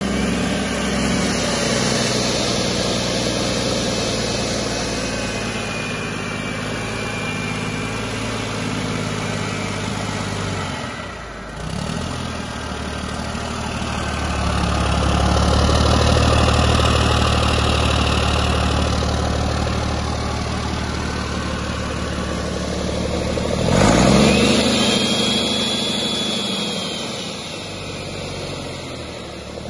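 A 2006 Mack AMI 380 hp inline-six diesel truck engine, out of the truck on a stand, running on test with a steady beat. About two thirds of the way through, the engine speed briefly rises, with a thin high whistle arcing up and back down.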